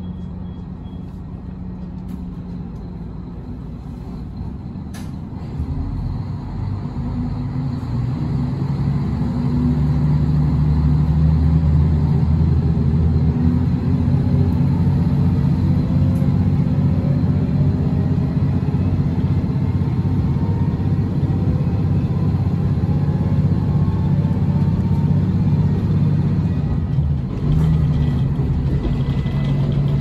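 Diesel railcar's engine heard from inside the passenger car, running low and then throttling up as the train pulls away. It grows louder about five and ten seconds in, with a faint rising whine as it picks up speed, and drops briefly near the end.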